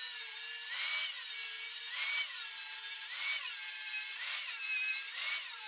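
Angle grinder grinding on a steel frame, a steady high whine whose pitch dips and recovers about once a second as the disc bears on the metal. It is grinding down spots on the frame where hooks will be welded on.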